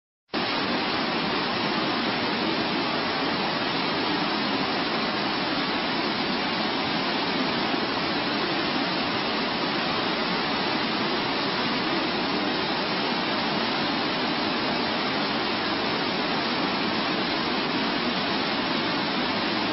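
Steady, even rushing noise with no distinct events and no change in level.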